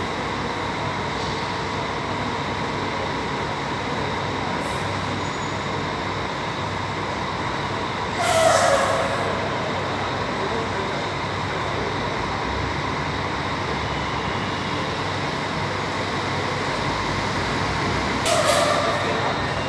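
Diesel coach idling with a steady drone, and two short, loud hisses of released compressed air about 8 and 18 seconds in, typical of a bus's air brakes or air system venting.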